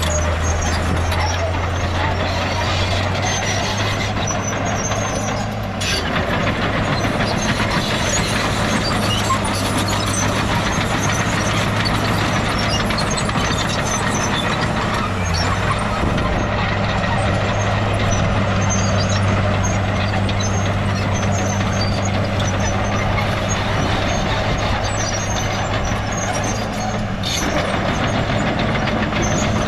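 Diesel engines of heavy earthmoving machinery running steadily under work, a constant low engine hum over a dense layer of mechanical rumble and clatter.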